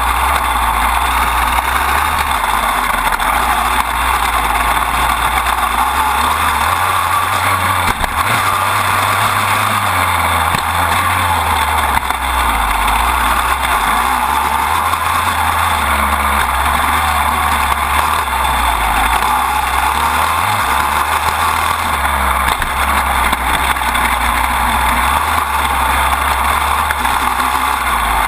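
Dirt bike engine running at speed, heard close up from a camera mounted by the chain and swingarm, with rushing wind and drivetrain noise. The engine note shifts several times as the throttle and gears change.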